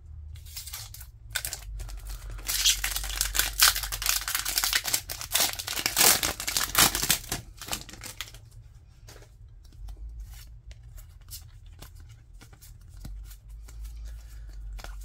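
Foil Pokémon TCG booster pack wrapper being torn and crinkled open, from about two seconds in until about eight seconds. After that, light rustles and clicks as the cards are handled and slid through the hands.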